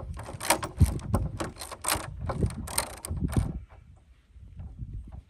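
Ratchet wrench clicking in repeated short strokes, about two or three a second, as the nut is run onto a wheelchair wheel's axle bolt. The strokes stop about three and a half seconds in.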